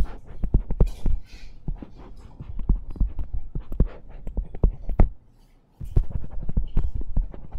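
Stylus tapping and stroking on a tablet screen: a rapid, irregular run of low knocks and ticks, with a short pause a little past the middle.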